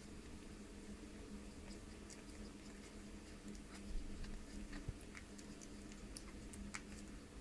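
Newborn puppies suckling at their mother's teats: faint, scattered wet smacking clicks, over a steady low hum.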